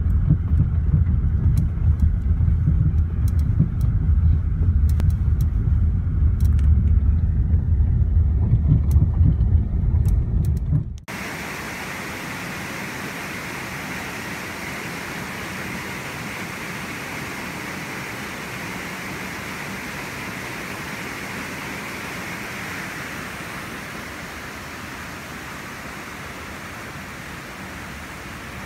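Loud low rumble of a car driving over an unpaved gravel road, heard inside the cabin, with scattered sharp clicks of stones. About eleven seconds in it cuts to a shallow, rocky river rushing over stones: a steady, even hiss.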